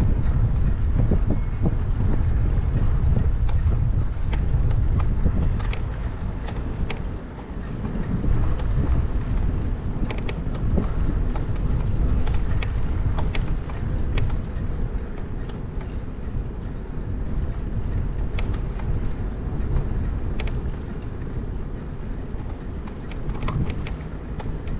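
Wind buffeting a bicycle-mounted GoPro's microphone while riding, a steady low rumble that eases briefly about seven seconds in, with scattered small clicks and rattles.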